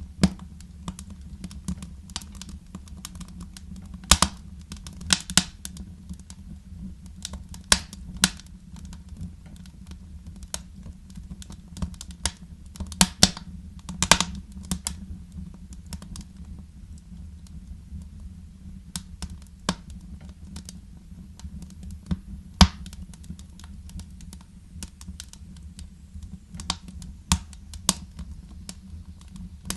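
Wood fire crackling, with irregular sharp pops and snaps over a steady low rumble. A few pops stand out loud, the loudest a little past the middle.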